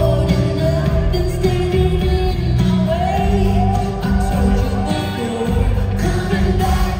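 Live pop band music with a woman singing lead into a microphone over a full band.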